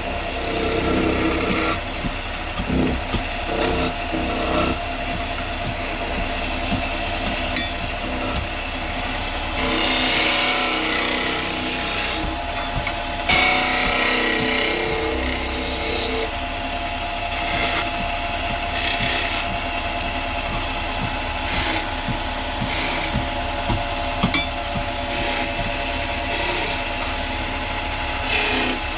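Wood lathe running with a steady motor whine while a tool is worked against the spinning wooden honey-pot blank. There are several short passes of louder scraping.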